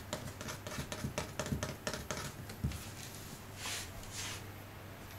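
Fingers tapping rapidly on a hard diatomaceous-earth bath mat, about four or five taps a second. The tapping stops about two seconds in, followed by a single thump and two short soft swishes near the end.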